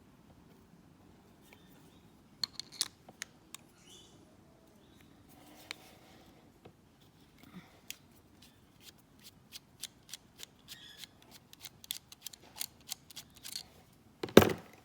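Small metal clicks and taps from hand tools working on a brass padlock as it is taken apart. The clicks are scattered at first, then come quickly one after another, and a single louder knock follows near the end.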